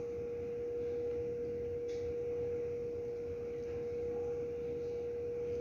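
A steady hum at one pitch over a low background rumble, with a faint tick about two seconds in.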